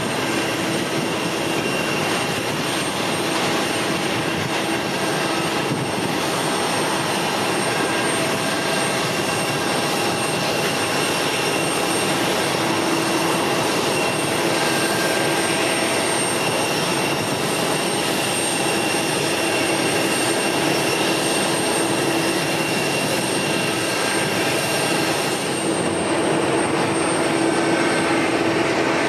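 Jet airliner engines running steadily, a constant whine over a broad rushing noise, with no rise or fall in pitch.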